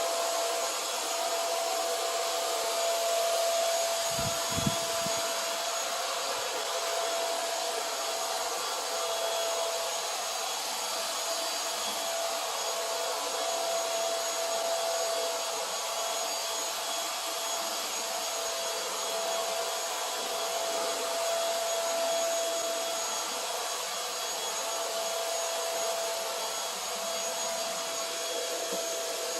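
Oraimo cordless stick vacuum running steadily: an even rush of air with a steady motor whine. A brief low thump comes about four seconds in.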